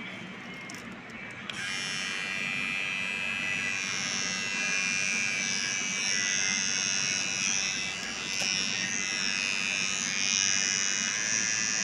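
VGR V-071 electric hair trimmer running with a steady high buzz, starting abruptly about a second and a half in.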